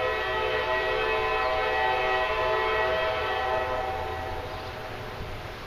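Diesel locomotive air horn sounding one long blast, several notes together, that fades out about four to five seconds in, over a low rumble.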